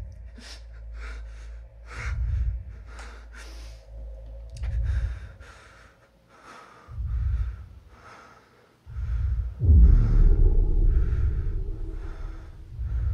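A man breathing heavily and quickly, in short hissy breaths, over deep low booms that pulse about every two and a half seconds; the loudest boom, about ten seconds in, swells into a long rumble.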